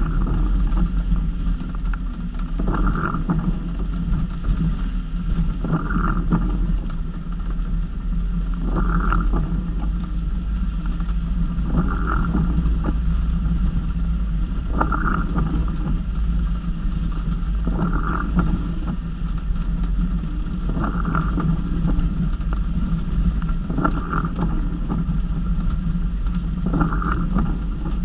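Jeep Wrangler YJ driving slowly on a dirt trail, its engine and drivetrain giving a steady low hum. A brief higher-pitched sound recurs evenly about every three seconds.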